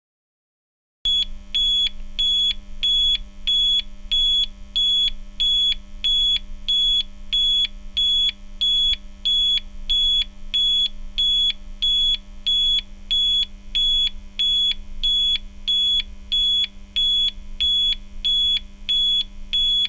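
Electronic timer alarm going off at the end of a countdown: a high-pitched beep repeating evenly about one and a half times a second, starting about a second in, over a faint steady hum.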